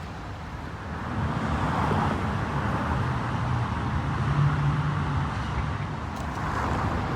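Road traffic: a motor vehicle passing, with tyre and engine noise that swells about a second in and a low engine hum that is strongest midway.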